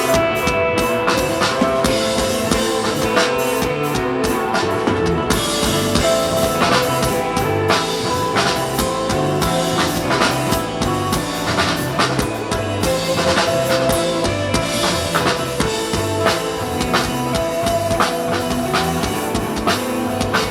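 Live instrumental rock band playing through a PA: sustained electric guitar notes over bass and a drum kit keeping a steady beat.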